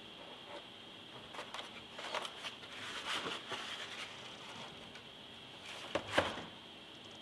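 Light clicks and rattles of a 3D-printed plastic model aircraft wing being handled and lifted, then a sharp knock about six seconds in as it is set down on the table.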